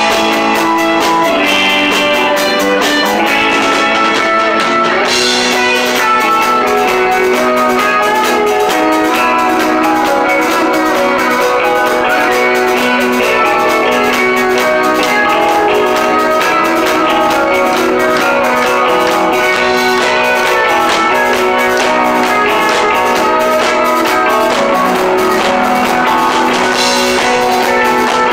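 Live rock band playing: electric guitars and bass over a steady drum-kit beat, at full volume.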